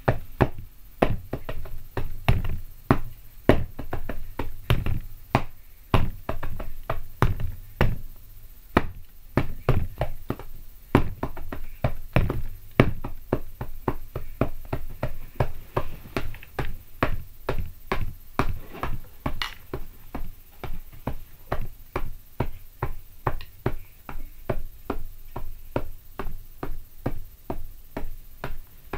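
Drumsticks beating a steady rhythm on a bed and pillows used in place of a drum kit: dull, padded thuds, a few hits a second.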